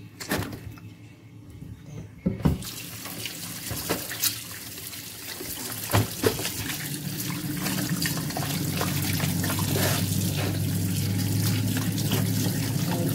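Kitchen tap running into a sink as a raw chicken is washed under it. The water starts about two seconds in and grows steadily louder, with a few knocks and clunks against the sink in the first six seconds.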